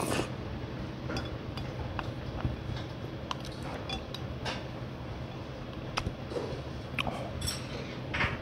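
Stainless steel spoon and chopsticks clinking now and then against a stainless steel rice bowl while rice is scooped and eaten, over a low steady hum.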